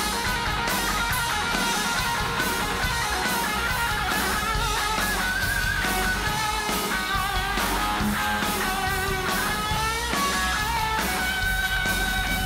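Live rock band with an electric guitar solo: a single-cutaway electric guitar plays a lead line with wavering, bent notes and upward slides over the band's steady backing.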